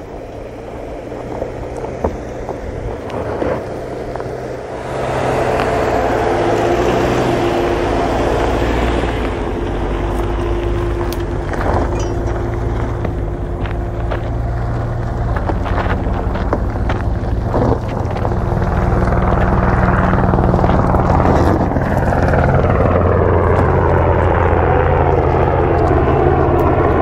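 Engine of a Subaru Outback Wilderness, a 2.4-litre turbocharged flat-four, working under load as the car climbs a steep, loose dirt hill. The engine runs steadily and gets louder about five seconds in and again around the middle, then its pitch shifts near the end. A few short knocks and wind on the microphone are heard as well.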